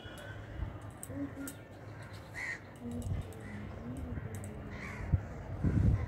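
A crow cawing a few times in short harsh calls, the clearest about two and a half and five seconds in. A short loud low rumble comes near the end.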